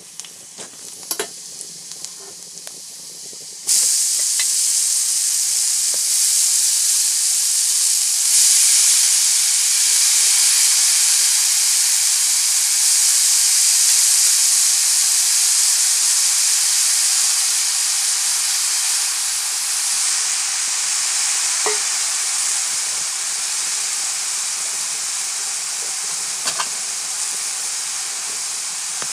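Onions in oil in a wok sizzle quietly with a few light clicks. About four seconds in, a heap of small mushrooms hits the hot oil and a loud, steady sizzle and hiss of frying and steam starts. It grows stronger a few seconds later and eases slightly toward the end.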